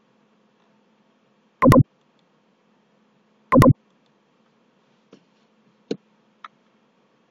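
Computer mouse clicks close to the microphone: two loud sharp clicks about two seconds apart, then three much fainter ticks near the end, over a faint steady hum.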